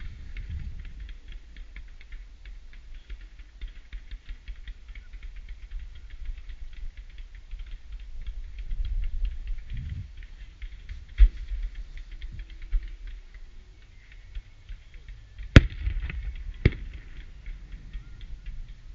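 Fireworks display: a steady crackle of many small pops from fountains and stars, broken by a few sharp bangs in the second half, the loudest about three-quarters of the way through.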